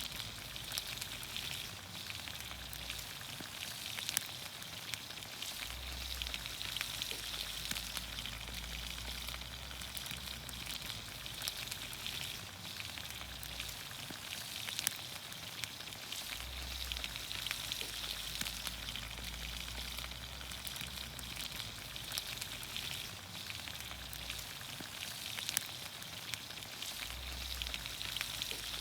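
Green beans, onions, carrots and potatoes sizzling in olive oil over a campfire: a steady sizzle with many small crackling pops.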